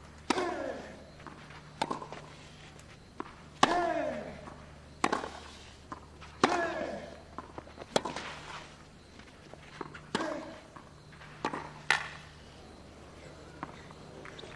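Tennis rally on clay: racket strikes on the ball about every one and a half seconds, several of them followed by a short grunt that falls in pitch.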